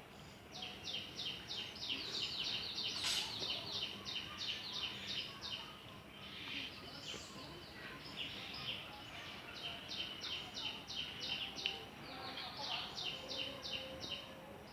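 A bird calling runs of short, evenly repeated high chirps, about four a second. There are three runs, with pauses between them, over faint outdoor background noise.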